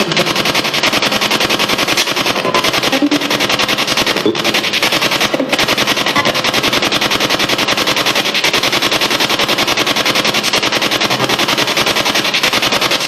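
SB7 spirit box sweeping rapidly through radio frequencies with its antenna extended: loud static chopped many times a second, with brief snatches of radio sound breaking through.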